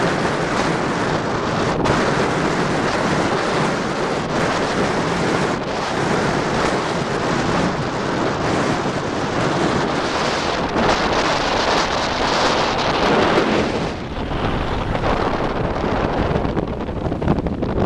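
Strong wind buffeting the camera microphone: a loud, gusting rush of noise that swells and eases, over wind-driven chop on the water.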